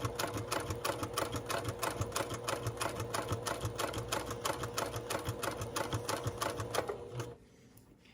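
Sewing machine stitching steadily, an even run of rapid needle strokes with a motor hum, stopping abruptly about seven seconds in as it sews a replacement zipper into a hoodie.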